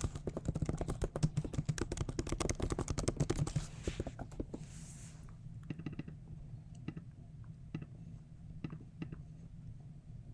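Fast typing on a computer keyboard for about four seconds, followed by a few scattered single clicks.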